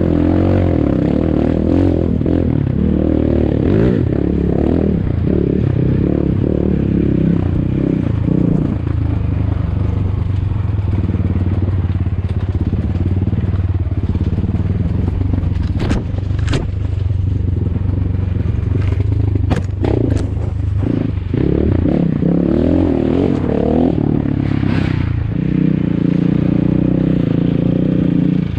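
ATAKI DR 250 enduro motorcycle engine running at low, wavering revs while riding off-road. A few sharp knocks and scrapes come about two-thirds of the way through.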